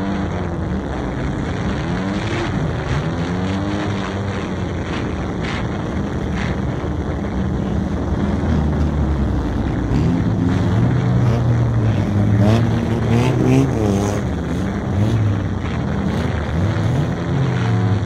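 Banger racing car's engine running and being revved up and down as the car drives, heard from inside the car; the pitch rises and falls again and again.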